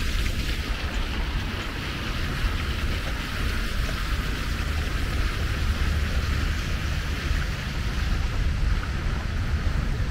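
Small water fountains splashing in a steady hiss, over a steady low rumble.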